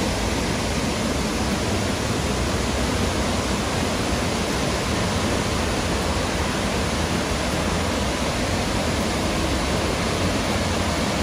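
Steady, even rush of Burney Falls, a large waterfall pouring into its pool.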